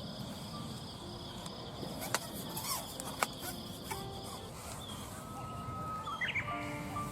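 An insect trills with a steady high buzz that stops about four and a half seconds in, with a couple of sharp clicks.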